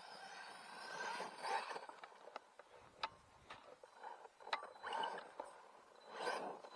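Brushless electric motor (3000KV) of a small DF-Models DF-4 BL RC truck whining in several short bursts of throttle as it climbs a loose dirt pile, with sharp clicks of stones and gravel kicked up by the tyres.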